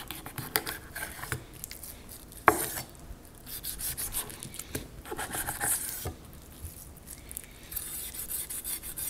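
Chef's knife sawing back and forth through raw salmon flesh and skin, trimming the belly flap, the blade rasping and scraping against a plastic cutting board in repeated strokes. A single sharp knock about two and a half seconds in.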